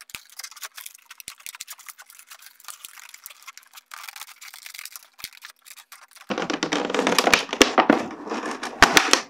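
Clear moulded plastic clamshell packaging crinkling and crackling as hands bend it and push in its retaining knobs to free a toy. Light, scattered crackles at first, then about two-thirds of the way in a louder, continuous crinkling with sharp pops of the plastic.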